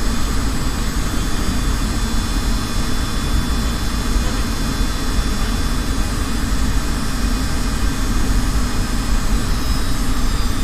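Aircraft engines running steadily, heard from inside the cockpit during the landing rollout: a low rumble with a steady high-pitched whine over it.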